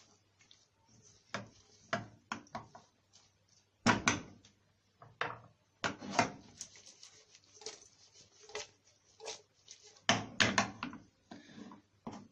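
Irregular knocks and clatters of cookware being handled, a dozen or so sharp hits with the loudest about four, six and ten seconds in.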